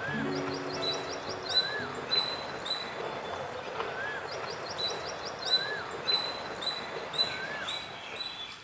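Birds calling outdoors: one bird repeats a short rising-then-falling whistle about every second and a quarter, among higher short chirps and two quick rapid trills. The tail of guitar music fades out in the first second or so.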